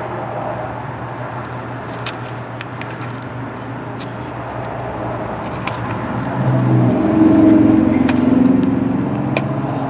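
A steady low mechanical hum runs underneath, growing louder for a few seconds about two-thirds of the way through. Over it come small clicks and rustles of fingers working in a corrugated plastic wiring loom around a corroded wire.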